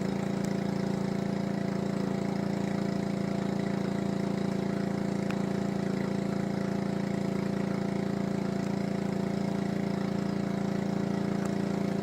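Pressure washer's small engine running steadily at an even, unchanging speed.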